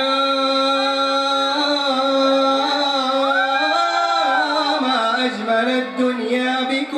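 A man singing solo into a microphone, holding long notes that bend and turn in pitch.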